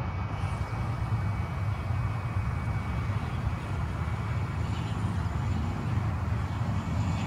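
ATR 72 twin-turboprop airliner on landing approach: a steady low drone from its engines and propellers.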